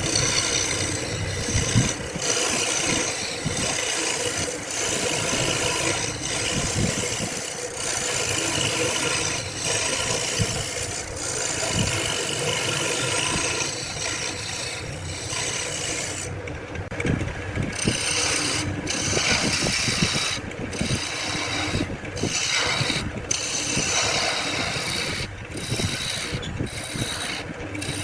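Wood being scraped by hand with an abrasive tool in repeated back-and-forth strokes, with brief pauses between strokes every second or two.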